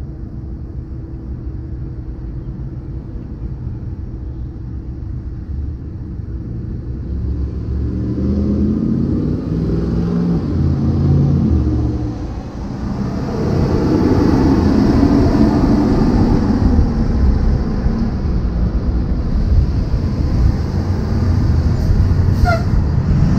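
Road vehicles' engines and tyres at an intersection, growing louder about a third of the way in, then staying loud through the second half. A school bus and a car are crossing near the end.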